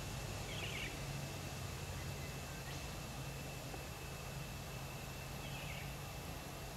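Quiet outdoor ambience: a steady hiss with a thin, constant high tone, and two faint brief chirps, one just under a second in and one near the end.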